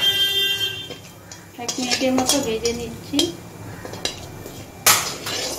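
Wooden spatula scraping and knocking in an aluminium karahi while stirring whole spices in hot oil, with a short metallic ring at the start and a sharp knock about five seconds in.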